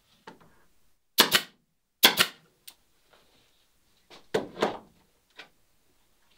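Pneumatic nail gun firing fasteners through wooden ribbands into the boat molds: sharp shots, two about a second apart, then a quick pair about four seconds in, with lighter clicks between.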